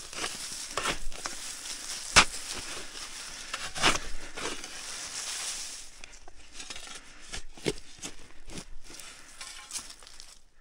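Spade chopping and scraping into dry, root-bound soil under dry leaf litter: a series of sharp strikes, the loudest about two seconds in, with crunching of leaves and earth. A steady high hiss runs under it and stops about six seconds in.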